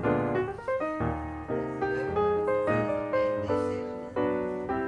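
Piano music: a steady run of struck notes and chords, each fading before the next.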